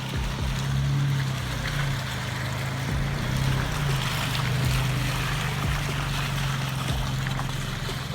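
Off-road vehicle driving slowly on a rough trail: a steady low engine drone under road and wind noise, with scattered low thumps as it goes over bumps.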